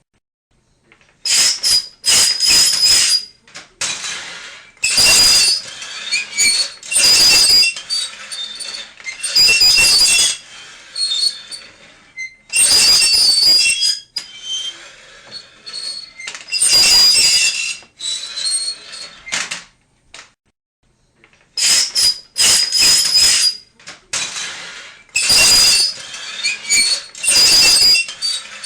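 Harsh, high-pitched squealing scrapes in irregular bursts of about a second each, every burst carrying a shrill steady ring, with short pauses between them and a longer pause about two-thirds of the way through.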